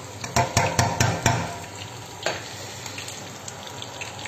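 A slotted spoon stirring in a stainless steel stockpot, knocking against the pot about five times in the first second and a half and once more a little after two seconds in. Underneath is a steady sizzle of eggplant cubes frying in oil.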